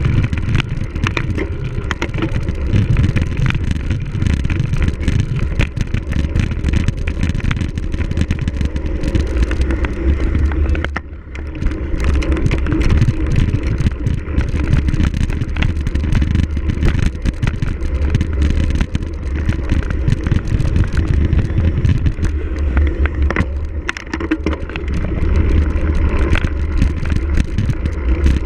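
Cyclocross bike ridden over rough ground: steady wind rumble on the microphone with many small clicks and rattles from the bike, easing briefly about 11 seconds in.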